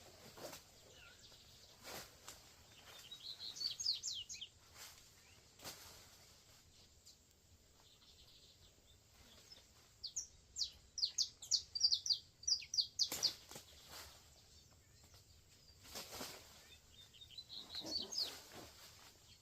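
Birds calling in three spells of quick, rising chirps, with a sharp click or snap now and then.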